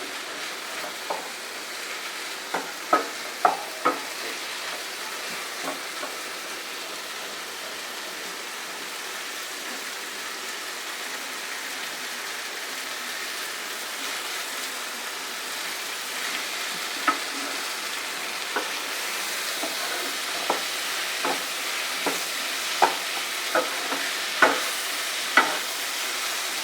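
Onion, tomato and masala paste sizzling in a pan. A spoon stirs it now and then, scraping and knocking against the pan in sharp clicks, most often in the second half.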